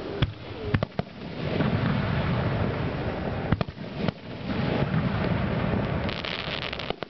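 Aerial fireworks shells bursting: a few sharp bangs in the first second and two more around the middle, each followed by a long rolling rumble, with a spell of fine crackling near the end.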